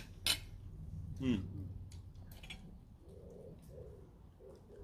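A pigeon cooing in a soft, repeated phrase of low notes from about three seconds in. Near the start there are two sharp clicks, likely cutlery or plates, and a brief falling hum from a person about a second in.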